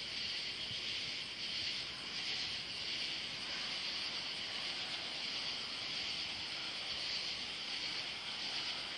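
Night insect chorus: a steady, high, even hiss that wavers slightly.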